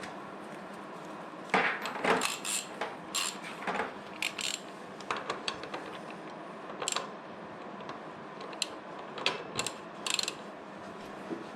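Ratchet wrench with a 24 mm hex bit working the front axle of a BMW S 1000 RR loose: irregular metallic clicks and clacks, loudest in a cluster a couple of seconds in, then sparser clicks to near the end.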